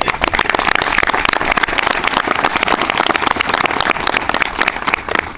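Audience applauding: many hands clapping, fading out as the applause ends.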